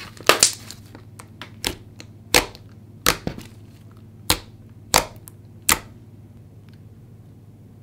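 Thick, glossy glue-based slime being pressed and poked with fingers, giving sharp pops as trapped air bursts: about eight pops spread over some six seconds.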